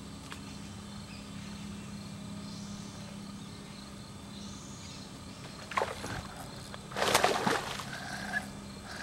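Water splashing twice: a short splash near six seconds in, then a louder, longer splash about a second later, over a steady low hum.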